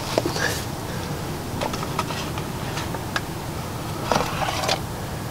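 Hands handling a new oil filter and its cardboard box: scattered light clicks and taps, with a short rustle of them about four seconds in.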